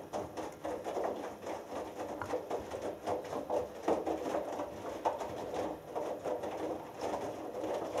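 Hoover Dynamic Next front-loading washing machine drum turning, tumbling a load of wet laundry with an irregular swishing and sloshing of water and fabric, until the drum stops at the very end.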